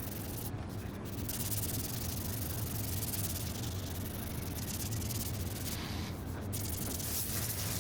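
Steady sanding on car body filler, a continuous rasp over a low machine hum; the high rasp drops away briefly twice.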